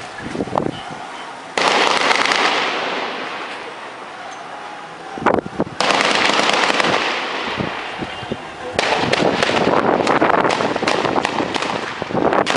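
Three sudden bursts of gunfire, each a dense crackle of shots that echoes and fades over a few seconds; the third, about nine seconds in, has the most rapid run of cracks.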